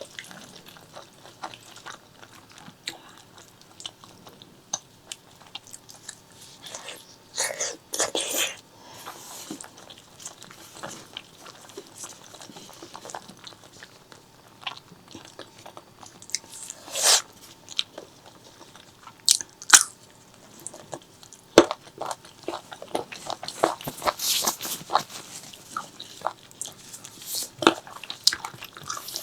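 Close-miked eating sounds of spicy pork leg curry with white rice: irregular chewing, biting and wet mouth smacks and clicks, with a few louder bursts scattered through.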